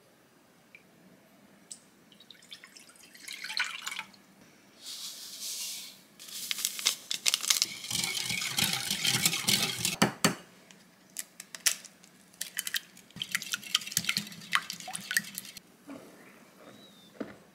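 Wire whisk stirring a milky bread mixture in a glass mixing bowl: rapid clinking of the wires against the glass with sloshing liquid, in two spells with a short pause between.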